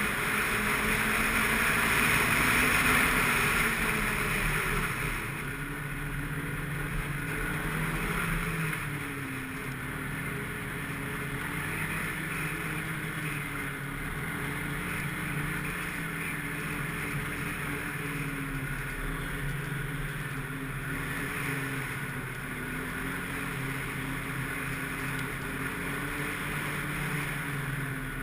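Snowmobile engine running under way, its pitch rising and falling with the throttle. It is loudest in the first few seconds, then settles to a steadier, somewhat quieter run.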